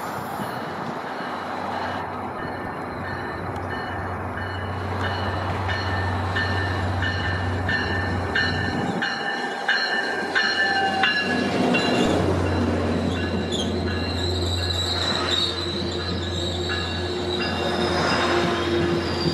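Caltrain EMD F40PH-type diesel locomotive hauling a commuter train into a station and rolling close past, its engine a steady low hum. A level-crossing bell rings about twice a second through the first half, and wheels squeal high as the cars pass near the end.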